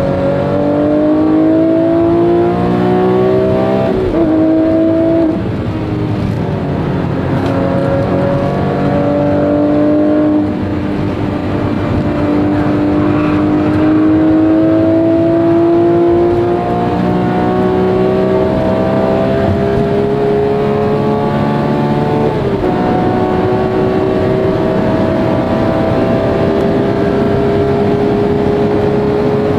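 Porsche 997 GT3 RS's naturally aspirated flat-six engine heard from inside the cabin, pulling hard with its pitch climbing steadily. The pitch drops sharply at an upshift about four seconds in and again a little past twenty seconds, followed by a long slow rise in the higher gears.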